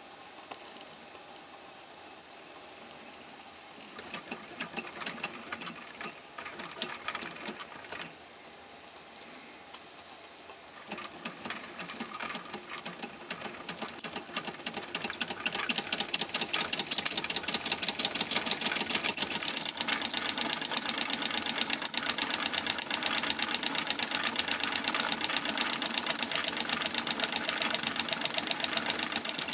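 Wilesco D430 Lokomobile live steam model engine running with its chain drive, a rapid mechanical clatter. It ticks unevenly at first, pauses briefly, then picks up speed into a fast, steady rattle.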